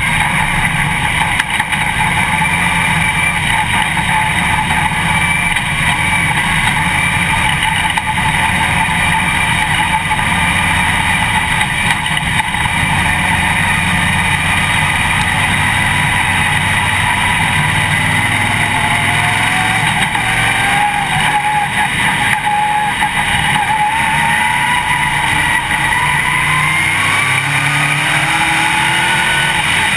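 Dirt late model race car's V8 engine running hard at speed, heard from inside the cockpit as a loud, steady drone. Its revs climb gradually through the last third.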